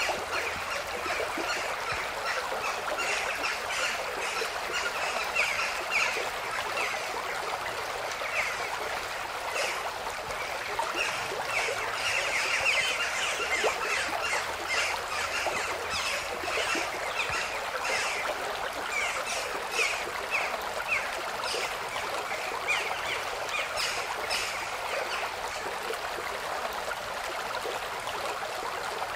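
Running stream with birds calling over it: a steady rush of water under many short, quick chirps.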